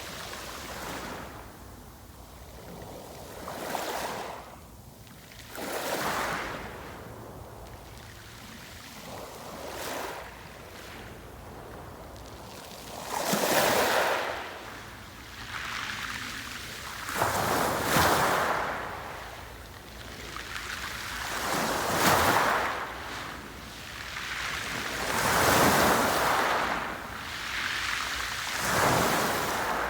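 Sea waves breaking and washing ashore, one rushing surge every few seconds, the surges growing louder in the second half.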